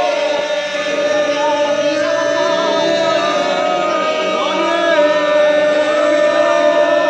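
Music with chanting voices over a steady held drone note, the melody wavering above it.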